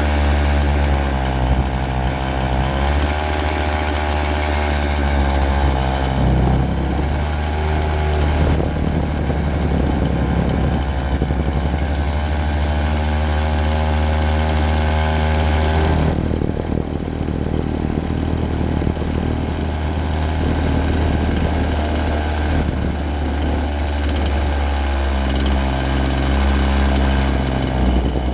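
Two-stroke chainsaw idling while it warms up, its idle note wandering in pitch rather than holding steady. Past the middle the engine note turns rougher for several seconds, then settles back into a steady idle near the end.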